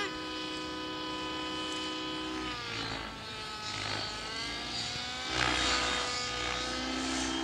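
Radio-controlled model helicopter in flight: a steady whine of evenly spaced tones from its motor and rotor. About halfway through the pitch wavers and dips, then a low rumble of wind on the microphone comes in.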